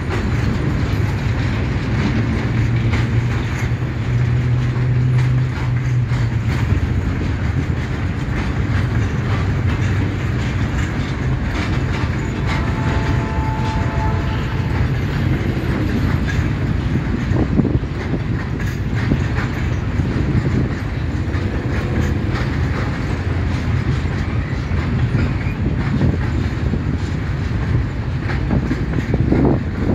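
Freight train of covered grain hopper wagons rolling past, a steady rumble of steel wheels on rail with a continuous clickety-clack over the rail joints. A brief faint whine comes about halfway through.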